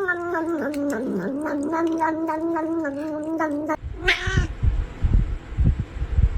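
A cat gives one long, wavering yowl lasting nearly four seconds, with a steady ticking running through it. A short meow follows, then low irregular thumps.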